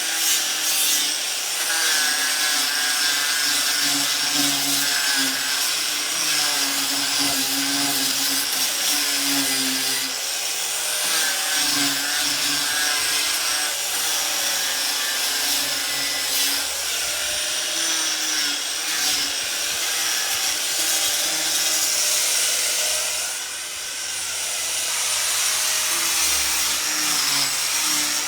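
A 4.5-inch angle grinder fitted with a 50-grit sanding disc running and abrading wood, a steady high motor whine over a rasping grind. The sound dips briefly about three-quarters of the way through, then picks up again.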